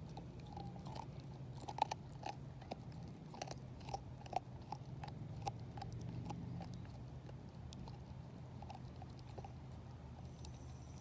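Dog gnawing a raw marrow bone, with irregular crunches and clicks of teeth on bone that come thickest in the first half and thin out later.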